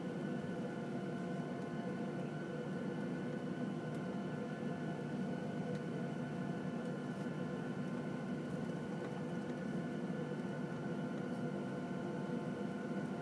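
Steady cabin drone of a Boeing 737-700 taxiing with its CFM56-7B jet engines at idle, heard from inside the cabin: a low rumbling hum with several steady whining tones over it.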